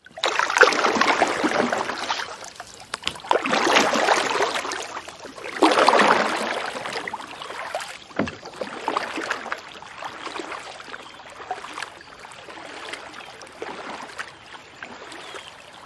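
Kayak paddles splashing in water: three louder swells of splashing in the first seven seconds, then softer lapping and dripping with small ticks.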